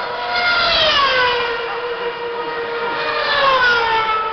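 Two 2010 Formula 1 cars with 2.4-litre V8 engines passing one after the other, each a high-revving engine scream that falls in pitch as it goes by, the second about three seconds after the first.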